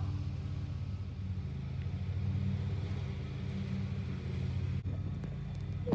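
A steady low mechanical drone with a fast even pulse, from a motor or engine running throughout.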